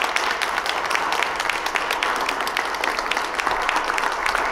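A small group applauding, a round of clapping, with one person's hands clapping close by.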